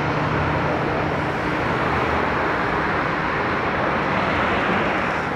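Steady drone of a Cessna 208 Grand Caravan's single PT6A turboprop engine and propeller in flight.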